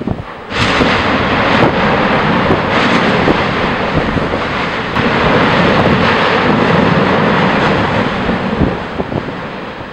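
Yasur volcano explosion: a sudden blast about half a second in, then a loud, steady rush of venting gas that lasts about eight seconds and dies down near the end.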